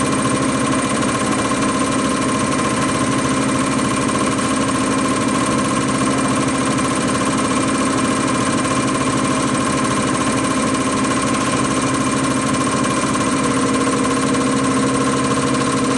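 CR926 common rail test bench running steadily through an injection-quantity test on a common rail injector: a constant machine hum with several held tones, including a high whine, over a dense rapid chatter.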